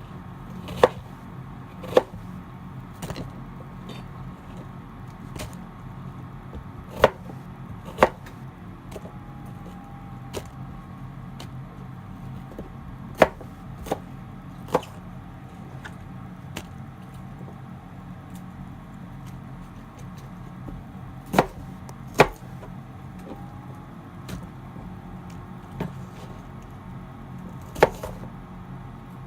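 Kitchen knife cutting vegetables on a cutting board: single sharp knocks of the blade on the board, about a dozen, irregularly spaced one to several seconds apart, some in close pairs, over a steady low hum.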